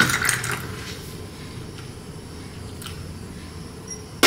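Cold milk poured into a glass of coffee paste: a short splashing rush at the start, then only faint low room noise.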